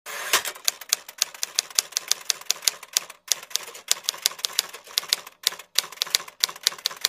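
Typewriter keys clacking in a quick, irregular run of several strokes a second, with a couple of brief pauses.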